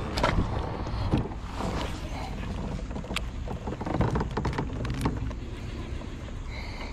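Wind rumbling on the microphone in a plastic fishing kayak, with scattered sharp clicks and knocks from hands handling a baitcasting rod and reel.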